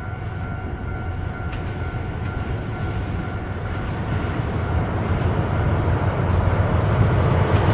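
JR Hokkaido DF200 diesel-electric locomotive approaching at the head of a container freight train: a low engine rumble growing steadily louder, with wheel-on-rail noise building toward the end.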